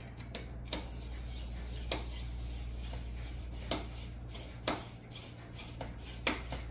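Hands working the mesh clips and tension hooks on a Snoo bassinet's frame: rubbing and scraping with about six sharp clicks at irregular gaps. A steady low hum runs underneath.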